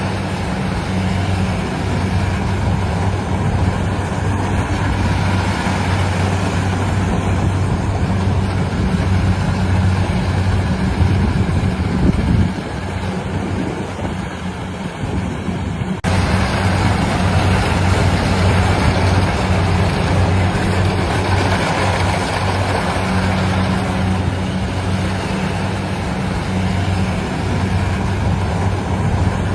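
Engine of harvesting machinery running steadily with a low, even hum. The hum weakens about 12 seconds in and comes back suddenly about 16 seconds in.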